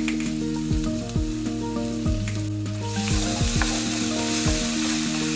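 Ground pork and chopped onion sizzling in a frying pan while ketchup is squeezed in and stirred through with a wooden spatula. The sizzle gets louder about three seconds in.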